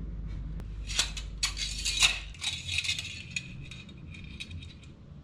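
Thin plastic of a cut-up water bottle used as a makeshift funnel crinkling and clicking as it is handled, a quick run of crackles from about a second in that thins out toward the end.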